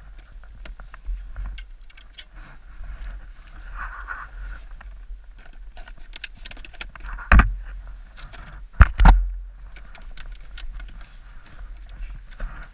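Scattered light clicks and knocks over a steady low rumble, with one loud thump about seven seconds in and two more in quick succession about nine seconds in.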